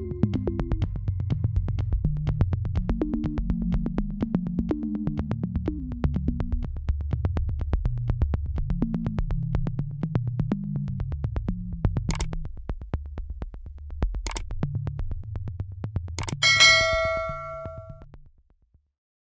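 Electronic background music with a steady beat over a synthesizer bass line. Near the end a bell-like ding rings out, and the music then fades away.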